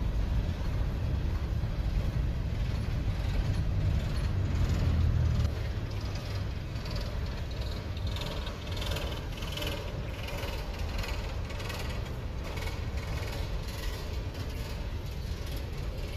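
Freight train moving past: a diesel locomotive's low rumble, which drops off about five seconds in, followed by the rattle and knocking of the rolling freight cars.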